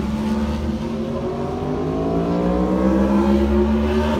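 A vehicle engine accelerating under load, its pitch climbing steadily, then breaking off near the end as it changes up a gear.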